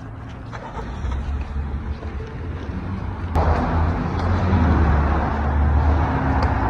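Passing road traffic: car engine and tyre noise, louder from about halfway through.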